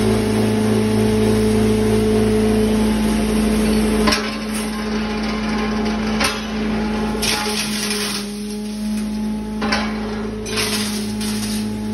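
Glass grinding machine, belt-driven by an electric motor, running with a steady hum, broken by several sharp cracks and short stretches of harsh grinding noise as pieces are fed in and crushed.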